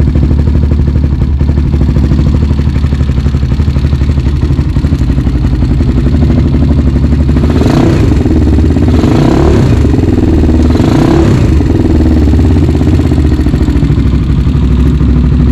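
Honda 400EX quad's single-cylinder four-stroke engine running steadily, started again after a dead battery was replaced. About halfway through, three short swells of louder sound break the even idle.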